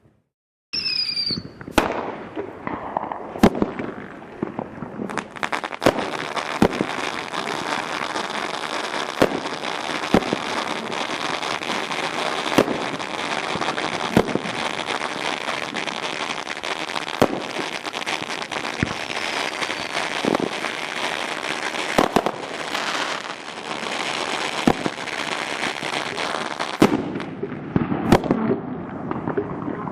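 Dominator fireworks going off: a brief high whistle and a few sharp bangs, then about twenty seconds of dense, continuous crackling with louder bangs every second or two, ending in a few last bangs.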